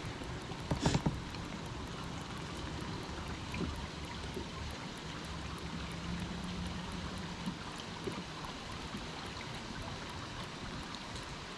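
Heavy rain falling on the lake, a steady hiss of drops; a couple of sharp knocks about a second in.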